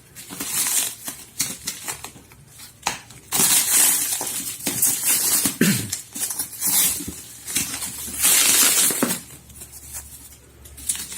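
Bubble wrap and plastic packaging being pulled and unwrapped by hand, rustling and crinkling in irregular bursts.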